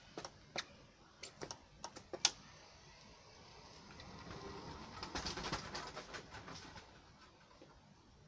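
A few sharp clicks and knocks as a rider gets onto an adult-modified kids' electric micro scooter. Then a rattling, rolling noise from the scooter as it moves off, swelling to its loudest about five seconds in and fading as it goes away.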